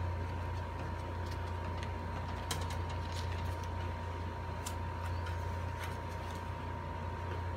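A steady low hum with a faint steady high tone above it, and scattered light clicks and taps from stiff cardboard flower petals being pressed and handled on a wooden table.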